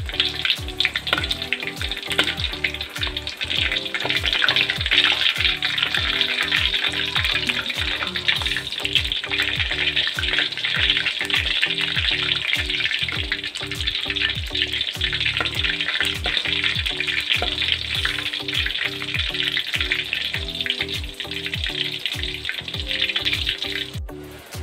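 Split eggplant frying in hot oil in a pan, a steady sizzle that cuts off suddenly near the end. Background music with a steady beat plays underneath.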